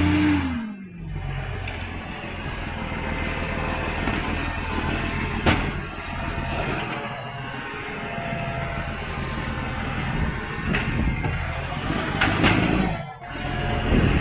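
Garbage truck's diesel engine running with an exhaust leak. Its note falls in pitch just after the start, then runs on steadily, with a brief drop about 13 seconds in.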